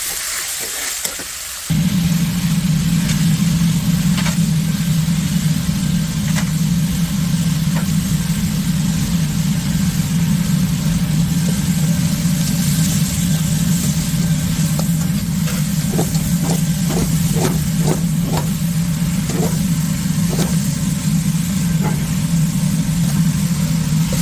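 Food sizzling in a wok under a loud steady low hum that switches on suddenly about two seconds in and runs on. A quick run of light knocks of the metal spatula on the wok comes about two-thirds of the way through.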